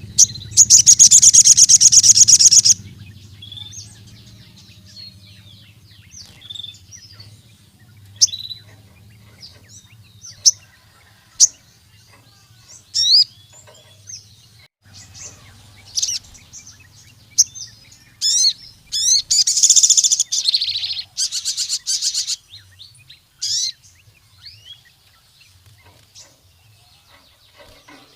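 Sogon (ruby-cheeked sunbird) singing in a lively, full song: a loud, very rapid high trill near the start, then scattered sharp high chirps, and another run of rapid loud trills about two-thirds of the way through. A faint low hum runs underneath.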